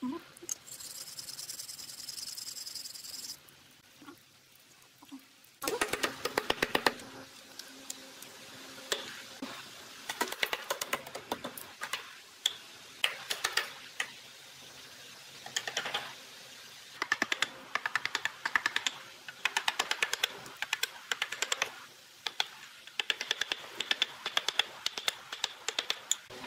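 Hand chisel cutting notches into pine frame rails, heard as repeated bursts of rapid clicking taps about a second long, starting about six seconds in. Before that there is a steady scraping hiss for the first few seconds.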